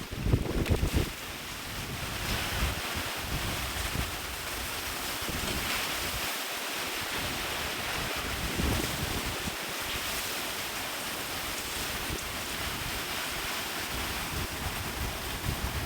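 Hurricane wind blowing steadily, with gusts buffeting the microphone as a low rumble. The buffeting is heaviest in the first second.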